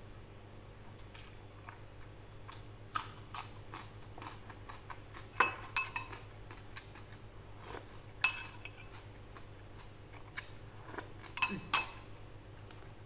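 A spoon and dishes tapping and clinking while someone eats, a scatter of small sharp clicks. The loudest ringing clinks come about five and a half, eight, and eleven and a half seconds in.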